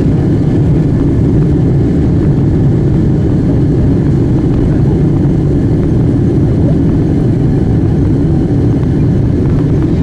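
Steady low rumble of a Boeing 777-200ER's jet engines and airflow heard inside the passenger cabin as the airliner taxis.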